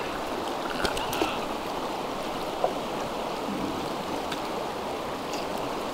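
Shallow rocky river running fast over riffles, a steady, even rush of water, with a few faint ticks in the first few seconds.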